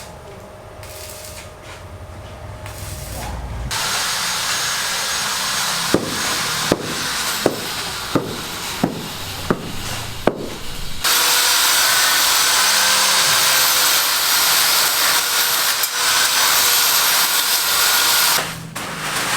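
Construction tool work: a rough sawing-like noise with about seven regular knocks roughly 0.7 s apart, then a louder steady power-tool noise from about 11 s in.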